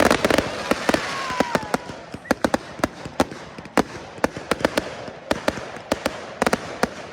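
Fireworks display: a rapid, irregular run of sharp bangs and crackles, densest at the very start and again about six and a half seconds in.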